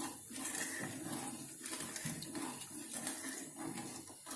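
A wooden spatula stirs milk in a saucepan, the milk swishing and the spatula scraping the pan in repeated strokes, as sugar is stirred in to dissolve.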